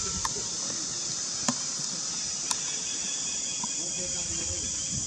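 A steady, high-pitched chorus of insects, with three short, sharp ticks about a second apart in the first half.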